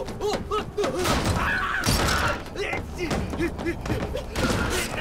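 Action sound effects: a string of thuds and crashes mixed with short vocal grunts and cries, with sharp impacts about a second in, about two seconds in and near the end.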